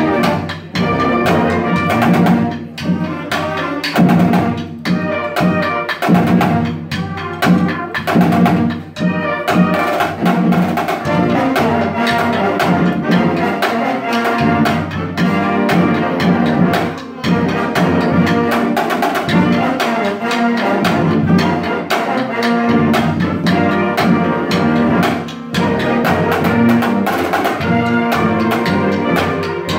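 High school marching band playing a tune: clarinets, saxophones, trumpets and sousaphone over bass drum and snare drum strokes.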